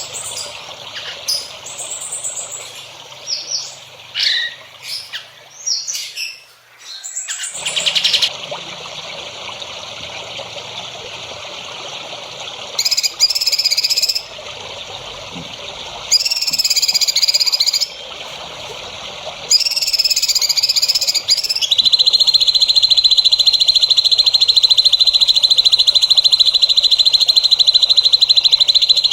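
Songbirds calling: short high chirps and whistles, then three buzzy repeated phrases, then a continuous rapid high trill for the last quarter or so.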